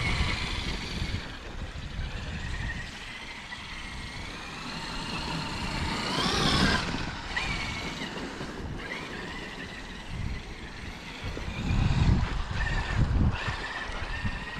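Traxxas X-Maxx electric RC monster truck driving through deep snow, its brushless motor whining and rising sharply in pitch as it speeds up about six seconds in. A low rumble runs underneath and grows louder near the end.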